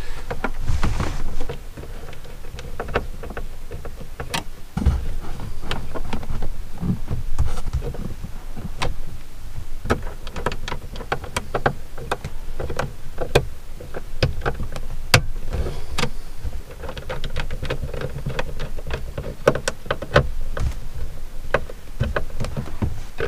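Irregular small clicks, taps and knocks of hands and a screwdriver working the wiring terminals of a wall-mounted solar charge controller, with a heavier knock about five seconds in.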